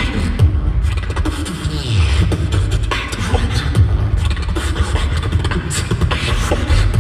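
Beatboxing into a microphone: a continuous deep bass line under rapid snare- and click-like hits, all made with the voice.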